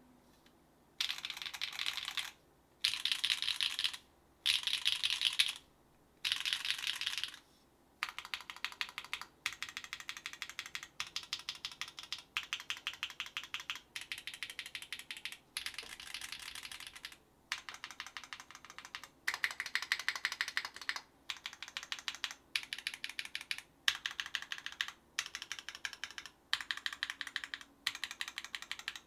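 Mechanical keyboard typing: a SINGAKBD Kohaku R1 with Gateron x Sillyworks Slay Type A switches on an aluminium plate and GMK keycaps. It is typed in repeated bursts of fast keystrokes, each a second or so long with short pauses between. The first few bursts, starting about a second in, are denser and louder than the rest.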